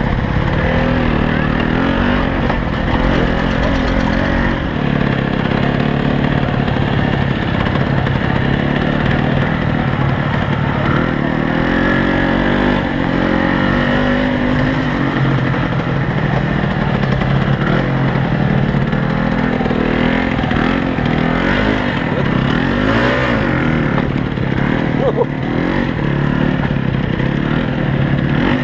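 Vintage engines running steadily and loudly, their pitch shifting a little over time, with crowd voices mixed in.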